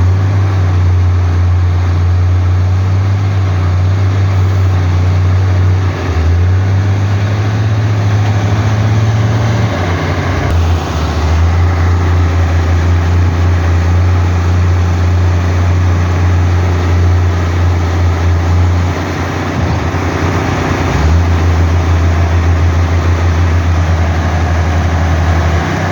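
Heavy construction-machine diesel engine running with a steady low drone that dips briefly a few times, around six, ten and twenty seconds in.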